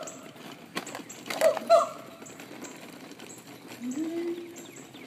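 Monkeys calling: a few short calls falling in pitch about a second and a half in, then a longer low held call near four seconds.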